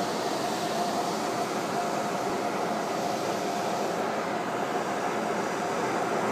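Steady machine noise: an even hiss with a faint whine in it, holding level without change.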